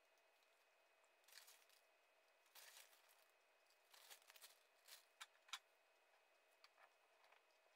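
Near silence, with faint scrapes and rustles of a metal spoon sprinkling crushed speculoos biscuit crumbs onto a cake, and two light clicks a little after five seconds in.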